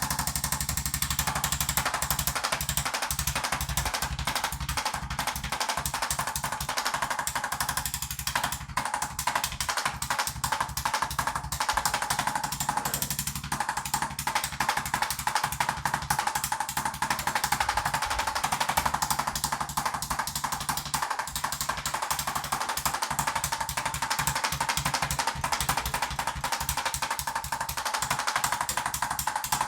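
A motorised percussive massage tool hammering fast and without a break against the body, a steady, rapid machine-gun-like rattle.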